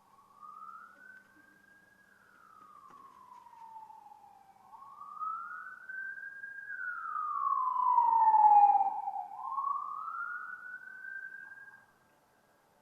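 Police siren wailing in slow rises and falls, about three cycles. It is loudest on a falling sweep about two-thirds of the way through and cuts off shortly before the end.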